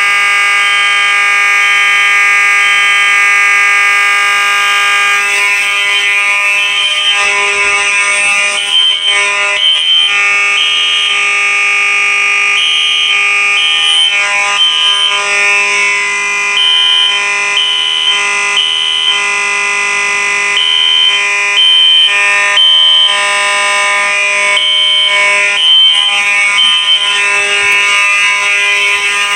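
Fire alarm horn strobes on test, a Faraday 6226HS and a System Sensor SpectrAlert Classic P1224MC, sounding continuously and loud. The horn holds one steady tone, and from about six seconds in a higher tone cuts in and out irregularly over it.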